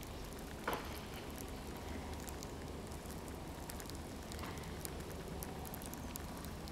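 Baitcasting reel cranked steadily on a slow retrieve, a continuous fine, irregular ticking and whirring, with one brief louder scrape about a second in.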